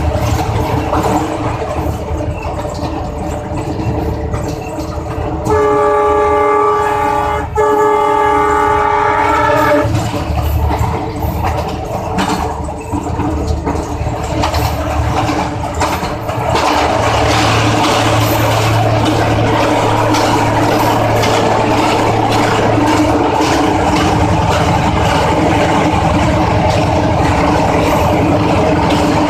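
Diesel locomotive running, heard from inside its cab with a steady engine drone and track noise. Its horn sounds about five seconds in for roughly four seconds, with a short break in the middle. Later, inside a tunnel, the running noise grows louder and fuller.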